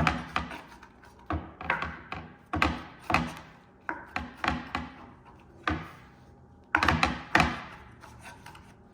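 Kitchen clatter of utensils and cookware: about a dozen irregular knocks and clunks, with a louder pair about seven seconds in.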